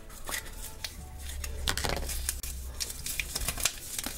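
Light clicks and rattles of small plastic pieces as a yellow Kinder Surprise toy capsule is pulled open and its packed contents are handled.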